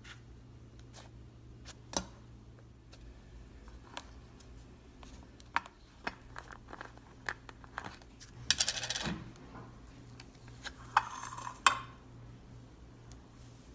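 Cloud slime being handled by hand: scattered small clicks and crackles, with two brief stretches of dense crackling about eight and a half and eleven seconds in.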